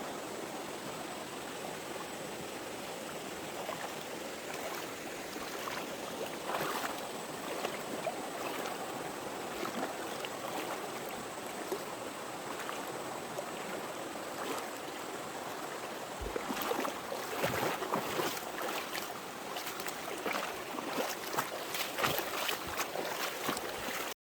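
Mountain stream running over rocks, a steady rush. In the last third it is broken by louder, irregular splashes.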